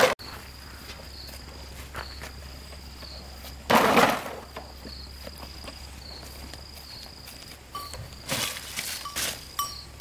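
Insects chirping in a steady high pulsing trill, with a loud burst of noise about four seconds in and several shorter ones near the end.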